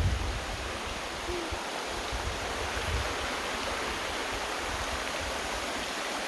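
Steady rushing of a flowing creek, with occasional low rumbles underneath.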